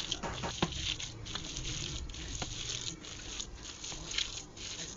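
Hands kneading and squeezing a wet minced-meat chapli kabab mixture in a bowl: irregular squishing with many short wet clicks and slaps.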